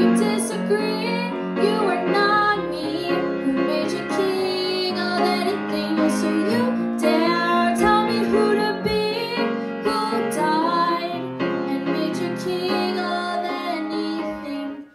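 A girl singing into a handheld microphone over instrumental backing music, loud and continuous, cutting off suddenly at the very end.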